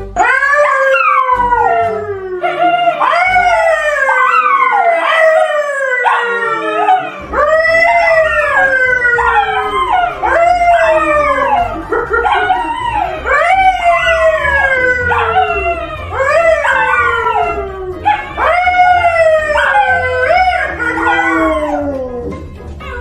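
A yellow Labrador retriever and a brown poodle howling together, with a man howling along: a long, overlapping series of howls, each sliding down in pitch, about one every second or so.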